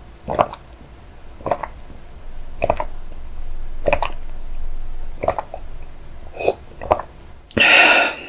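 A person gulping a drink from a glass, about seven swallows a little over a second apart, then a loud breathy "ahh" exhale near the end.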